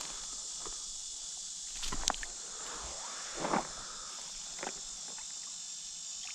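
Steady high-pitched chorus of insects, with a few short scuffs and clicks about two, three and a half, and four and a half seconds in.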